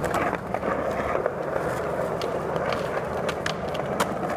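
Skateboard wheels rolling on skatepark concrete: a steady rumble with scattered light clicks, and a sharper click about four seconds in.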